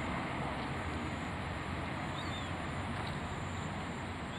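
Outdoor ambience: a steady rushing noise with a faint high hum, and two short bird chirps, one about halfway through and one near the end.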